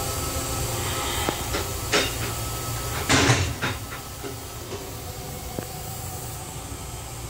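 Steady low rumble and hiss of a Metro-North M3 electric railcar, heard inside its small restroom. A few sharp clicks, and a louder brief clatter about three seconds in.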